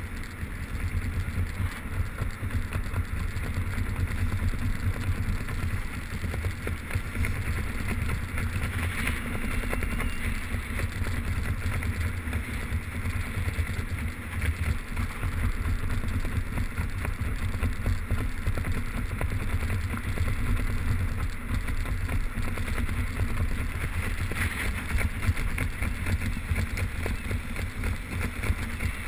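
Wind rushing over a skydiver's camera microphone: a steady low rumble with a hiss over it.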